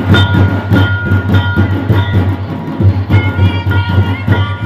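Santali folk dance music: large double-headed barrel drums beat a fast, driving rhythm under a high melody line that holds notes with short breaks. The music starts abruptly.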